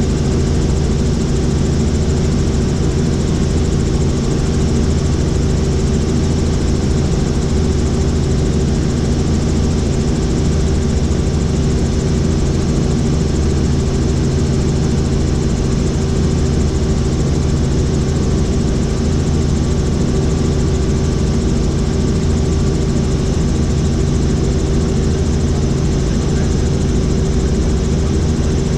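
Helicopter in flight, heard from inside the cabin: a steady, loud drone of engine and rotor, with several low hums held at a constant pitch.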